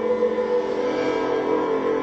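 Improvised live electronic music: a steady drone of sustained, layered tones.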